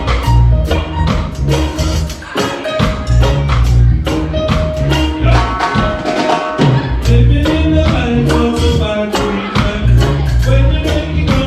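Live roots reggae band playing: heavy bass line and drums with a steady beat, with keyboard or guitar chords on top.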